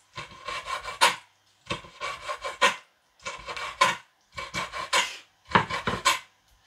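Cleaver chopping raw fish on a wooden cutting board: about five quick runs of rapid chops, each around a second long, with short pauses between.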